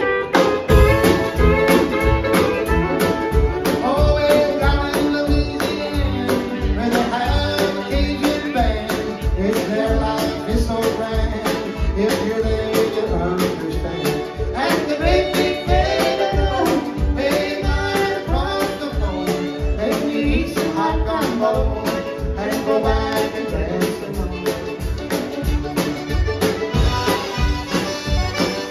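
Live country band playing a dance tune: fiddles, mandolin, acoustic guitar and pedal steel over upright bass and drums keeping a steady beat of about two a second. The band comes in all at once at the start.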